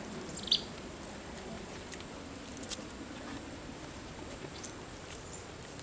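South American coatis foraging in leaf litter: one short, high squeak about half a second in, then a few faint clicks and scuffles over a steady outdoor background.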